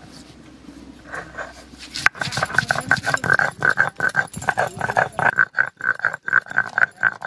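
Ginger and garlic being ground on a sil-batta, a flat grinding stone worked with a stone roller, in quick back-and-forth strokes. The strokes start about two seconds in and come two to three a second, each a rasping scrape of stone on stone with a recurring squeak.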